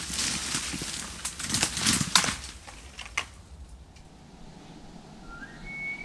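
Rustling and crackling of brush with sharp snaps of dry twigs, as something moves through dense forest undergrowth, dying away about halfway through. Near the end a high whistle-like tone rises and holds.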